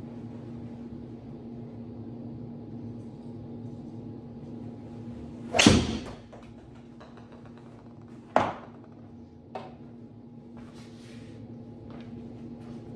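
A golf driver strikes a ball with one loud crack about halfway through, the ball hitting the simulator screen right after. A second sharp knock follows a few seconds later and a lighter one a second after that, over a steady low hum.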